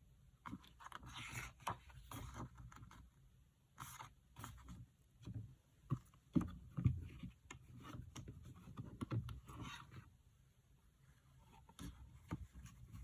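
Hands handling album packaging: scattered taps, clicks and rustling scrapes of card, paper and plastic, with the loudest knocks about six to seven seconds in.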